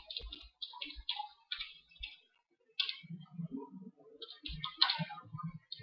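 Typing on a computer keyboard: quick runs of keystrokes, with a short pause a little after two seconds in.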